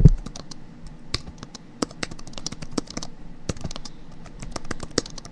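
Computer keyboard typing sound effect: quick, irregular key clicks, several a second, with a low thump at the very start.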